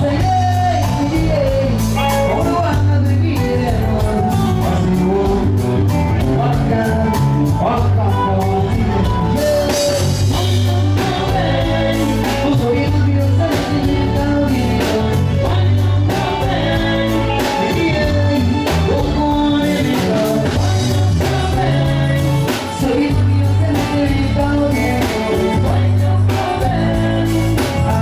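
Live band playing loudly, a singer over a heavy repeating bass line and drums.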